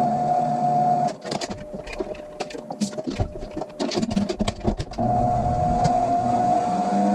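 Electric salad spinner spinning wet greens dry: its motor runs with a steady whine, stops about a second in, and starts again about five seconds in. In between come irregular clicks and plastic rattles as the spinner is handled.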